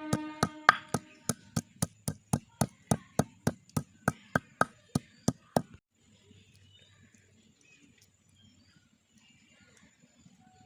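Dried fish being pounded to crush it: sharp, even knocks about three a second, stopping about six seconds in.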